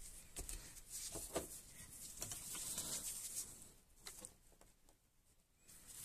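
Faint handling noises: gloved hands moving multimeter test leads and setting the probe tips on a small circuit board, a few soft clicks and rustles, then near silence for the last couple of seconds.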